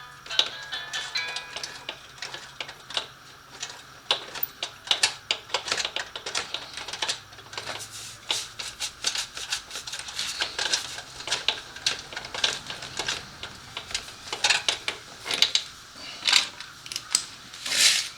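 Rapid, irregular clicking and clinking of hand tools against metal exhaust parts, some of it in quick clusters, during removal of a sport bike's catalytic-converter exhaust section.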